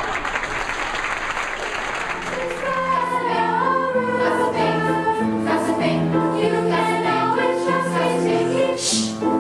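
Applause for the first couple of seconds, giving way to a choir singing slow, long-held notes.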